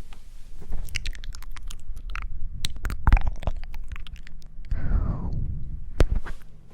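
Close-miked ASMR trigger sounds: a run of crisp clicks and crunchy crackles over low rumbling handling noise, with a falling squeak about five seconds in.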